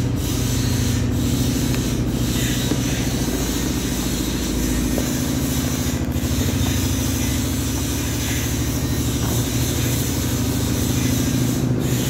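Washing machine running and vibrating hard: a steady, loud hum with a fast rattle.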